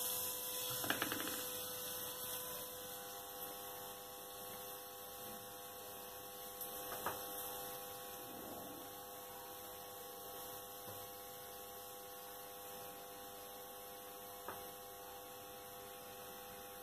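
Faint, steady electrical hum of a few thin tones over a soft hiss, with a few faint soft knocks.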